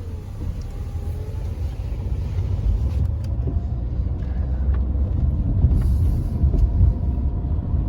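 Low, steady rumble of a moving road vehicle heard from on board: engine and road noise, with the deepest part fluctuating.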